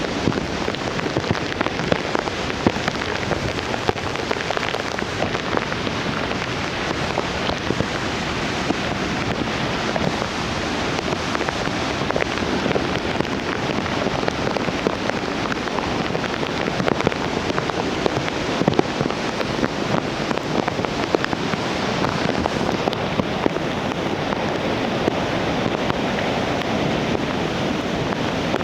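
Nunobiki Falls' Ontaki waterfall, swollen with typhoon runoff, pouring down in a steady, dense rush of falling water.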